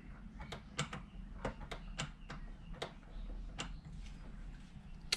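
Light metallic clicks, about ten at irregular intervals, from the throttle linkage of an individual throttle body kit being worked by hand.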